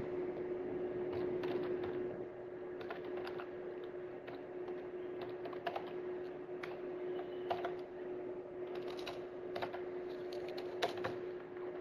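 Irregular clicking of computer keyboard keys as a file path is typed, over a steady low hum.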